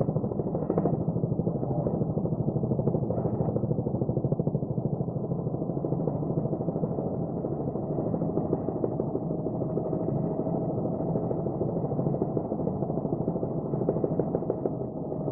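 Helicopter engine and rotor noise: a steady drone with a rapid, even pulsing and a steady whine held above it.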